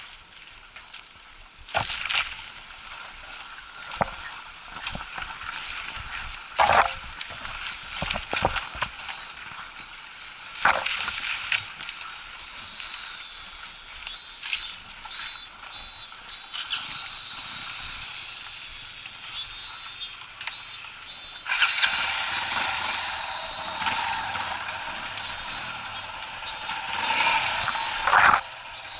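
Rapid, high-pitched trilling animal calls in repeated pulses, with a few sharp knocks and scrapes in between.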